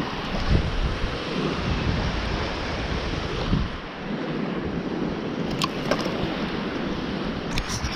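Wind buffeting the microphone over the steady wash of surf, with a few light clicks about two-thirds through and near the end.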